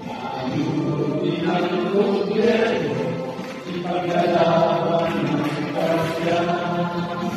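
A group of men singing together in unison, holding long notes that shift in pitch every second or two.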